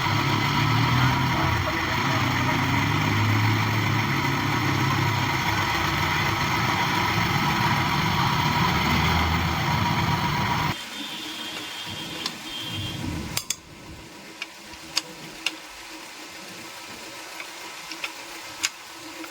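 A machine running steadily with a constant whine, cutting off suddenly about eleven seconds in. After that come quieter workshop sounds with a few light metallic clicks.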